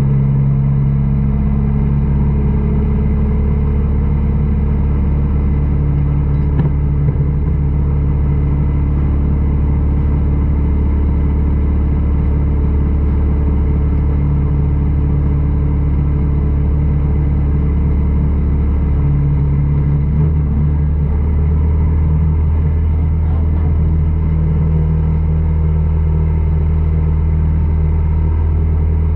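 Dirt-track race car's engine idling steadily, heard from inside the cockpit. Its pitch shifts slightly about two-thirds of the way through.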